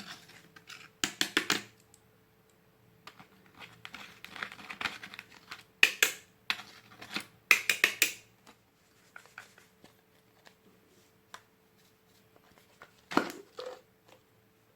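Glitter slime being kneaded and stretched by hand, giving several short runs of quick sticky clicks and pops with quiet gaps between them. A faint steady hum runs underneath.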